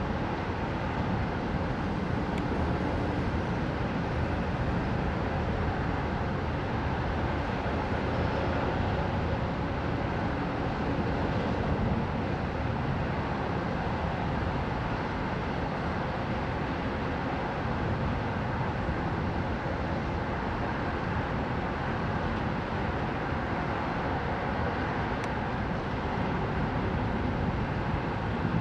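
Steady wash of heavy road traffic from a multi-lane motorway, with no thunderclap standing out.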